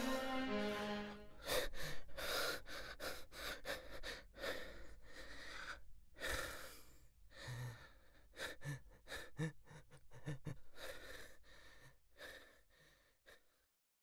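A sad bowed-string melody ends about a second in, then a man pants heavily and raggedly as he runs, the gasps coming a few a second and fading away near the end.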